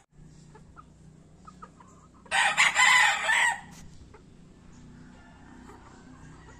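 A gamecock (fighting-breed rooster) crowing once, a loud crow of about a second near the middle.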